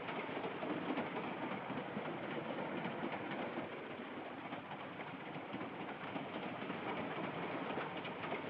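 Steady rumble and rattle of a passenger train running on the rails, heard from inside a carriage corridor.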